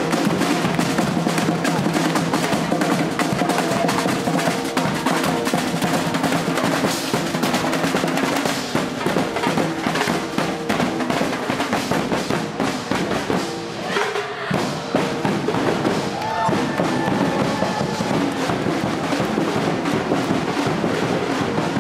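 Marching drum band playing: snare drum rolls and bass drum beats under held instrument notes.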